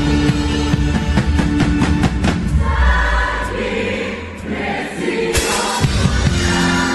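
Live choir singing a gospel song with a band and acoustic drum kit. The drums drop back for a softer, sustained choral passage near the middle, then come back in with a loud hit about five and a half seconds in.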